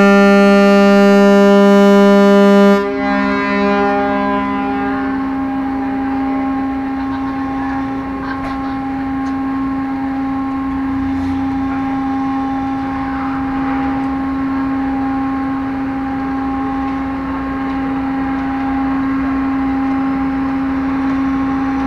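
Ferry's horn sounding one long loud blast that cuts off about three seconds in and echoes briefly. After it comes the steady drone of the ship's engines.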